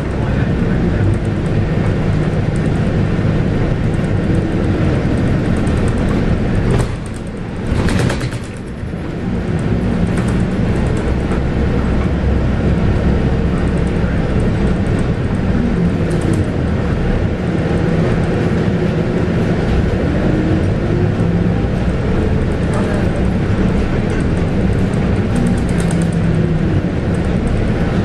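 Scania DC9 9.3-litre five-cylinder diesel of a Scania K280UB bus running under way, its note rising and falling now and then as the six-speed ZF Ecomat automatic works through the gears. A short hiss comes about eight seconds in.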